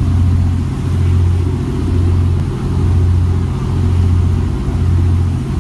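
Fishing boat's engine running underway: a steady low drone that swells and dips about once a second.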